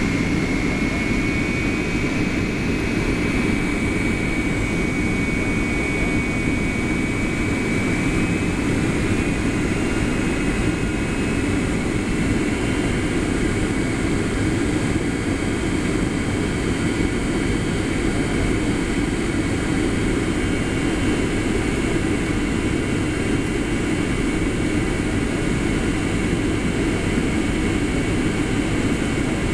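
Cabin noise inside a Boeing 757-200 on its landing approach: a steady rush of airflow and jet engine noise. A thin high whine runs over it and steps up in pitch about ten seconds in.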